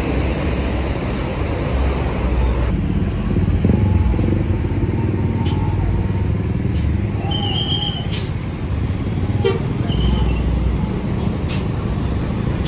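Large tour-bus diesel engines running amid road traffic, a steady low rumble throughout, with two brief high-pitched tones about halfway through.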